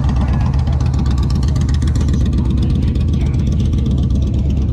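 Motorcycle engine running steadily nearby, a loud, even low-pitched sound with a fine regular pulse.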